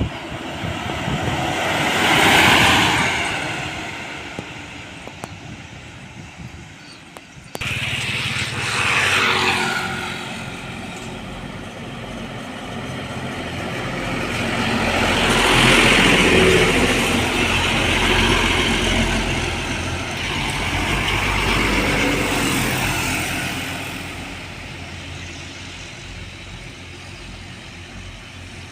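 Heavy trucks driving past one after another on a road. One passes about two seconds in; after a sudden cut, another goes by with a falling engine note; then a long, loud pass-by with a deep engine note fills the middle stretch.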